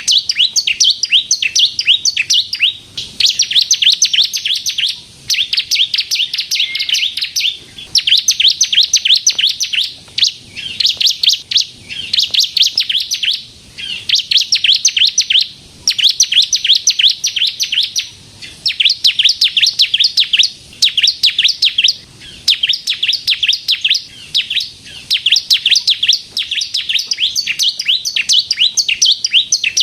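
Bar-winged prinia (ciblek kristal) singing on and on in high, rapid trills, phrases of one to two seconds with short breaks between them.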